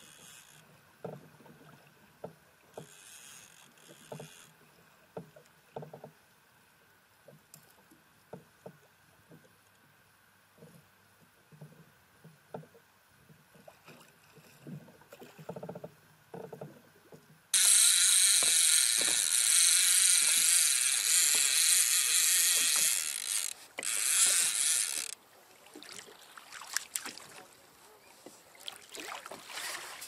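Small water slaps and light knocks against a kayak's hull. About 17 seconds in, a loud, steady hiss starts suddenly, runs for about seven seconds with one short break, and stops abruptly.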